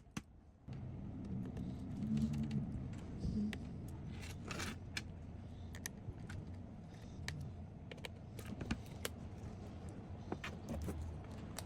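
Scattered small clicks, taps and light metallic clinks from handling a laptop's parts and small tools during reassembly, over a steady low hum.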